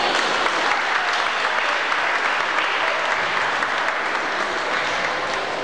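Audience applauding, easing off slightly near the end.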